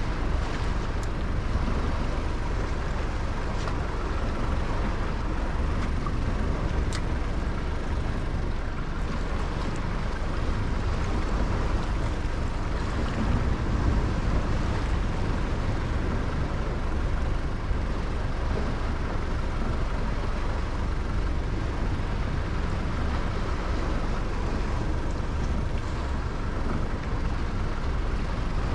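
Steady low rumble of wind and water around a small open boat, even throughout with no distinct events.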